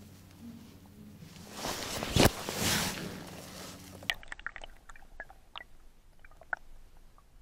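Lake water splashing and sloshing as hands and a camera go into the water over the side of an inflatable boat to release a pike, with one sharp splash about two seconds in. About four seconds in, the sound turns muffled as the camera goes underwater, leaving scattered small clicks and taps.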